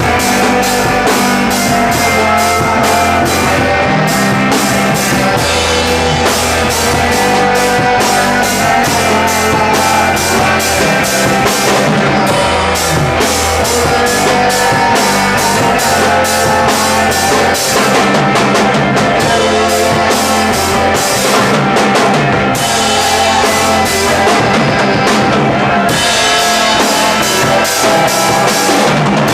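Rock music with a full drum kit, steady beat and bass.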